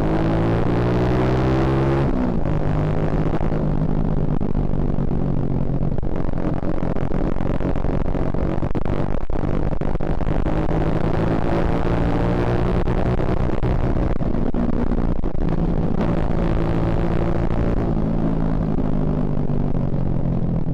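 Suzuki Shogun Axelo R's single-cylinder four-stroke engine under way, its pitch climbing with the throttle and dropping sharply at a gear change about two seconds in. It then rises and falls with the throttle, with another sharp drop near the end.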